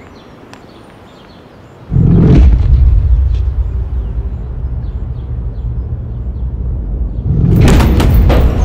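A deep cinematic rumble hits suddenly about two seconds in and holds as a low steady drone. Near the end a flurry of sharp hits cuts in over it.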